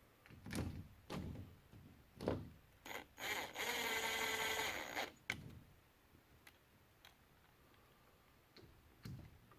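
A cordless power driver runs for about two seconds with a steady whine, driving a screw to fasten the back plate of a T-handle lock, with light clicks and knocks of handling the parts and tool before and after.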